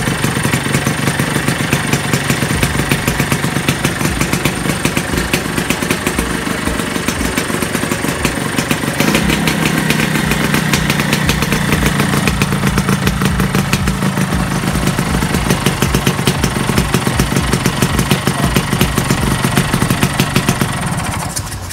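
Vespa PX210's two-stroke single-cylinder engine running steadily at idle on its first run after a full restoration. About nine seconds in it steps up to a slightly higher, louder speed, and it dies away near the end.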